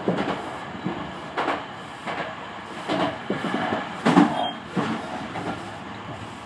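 Tobu 50000-series electric train running, its wheels knocking over rail joints and points in irregular clacks about once a second, heard from inside the car.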